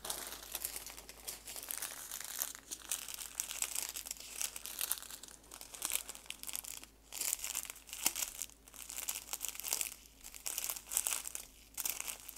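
Small heat-sealed plastic bags of diamond-painting drills crinkling as they are handled and shuffled by hand, in uneven spurts of crackle.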